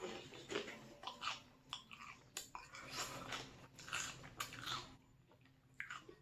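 Close-up chewing and crunching of pork rinds dipped in cheesy pizza dip, in irregular crackly bites that die down about five seconds in.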